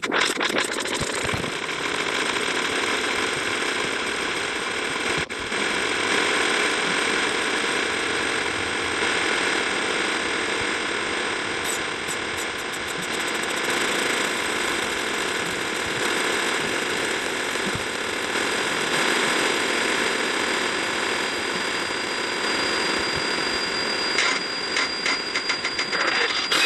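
Dense, harsh wall of noise from a cartoon clip's audio stacked on top of itself many thousands of times, with a steady high tone running through it. It flickers rapidly near the end.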